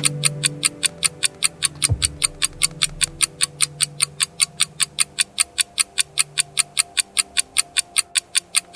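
Countdown timer sound effect: rapid, even clock ticking, about five ticks a second, over soft background music with low held notes. The ticking stops right at the end.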